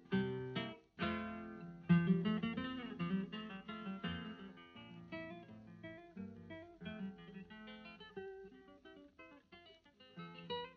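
Background music on acoustic guitar: three strummed chords in the first two seconds, then a run of quick picked notes that grows quieter.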